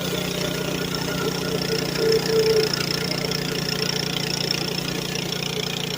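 Engine of a Hudson bandsaw sawmill running steadily, briefly louder about two seconds in.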